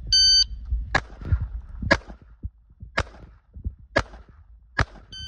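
A shot-timer beep, then five handgun shots roughly a second apart, and a second timer beep at the very end, which fits a five-second par time for a 5x5x5 drill.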